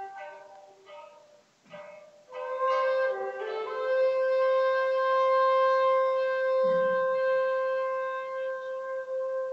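Shakuhachi bamboo flute playing a few short notes, pausing briefly, then holding one long, clear note from a little over two seconds in. A brief low thump sounds about two-thirds of the way through.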